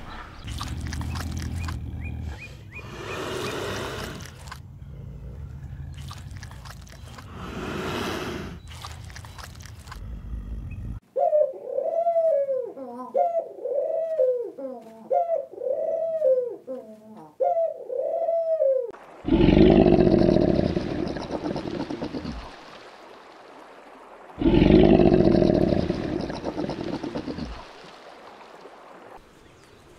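Pigeons cooing: a repeated falling coo, about one a second, for some eight seconds. Then two long, loud, low crocodile growls a few seconds apart, the loudest sounds here, after about ten seconds of mixed noisy sound at the start.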